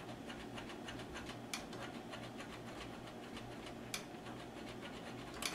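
Cotton swab wet with acetone scrubbing up and down in the groove of a VCR loading-motor pulley: faint, rapid scratching, with a sharper tick about a second and a half in and another near four seconds.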